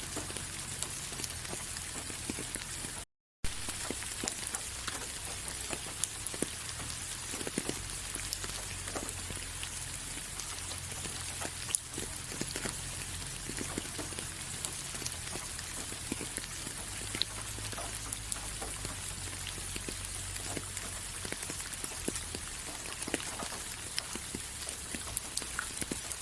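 Steady rain falling, with many separate drops ticking among the hiss. The sound cuts out completely for a split second about three seconds in.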